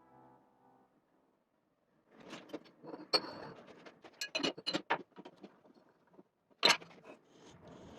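Irregular clicks and knocks of hand work at a lathe, with a single sharp, loud click near the end.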